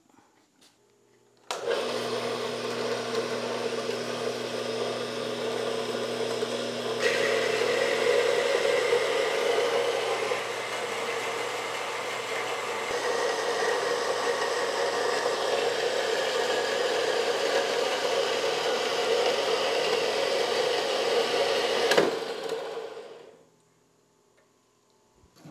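Horizontal metal-cutting band saw running, its blade cutting a slug off 3/4-inch round bar stock. It starts with a steady motor hum and grows harsher about seven seconds in. Near the end it stops with a click and winds down.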